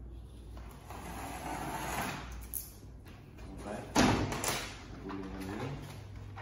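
Window tint film being cut from the roll with a utility knife and the cut sheet pulled free: scraping and rustling of the plastic film, with a loud crackle of the sheet about four seconds in.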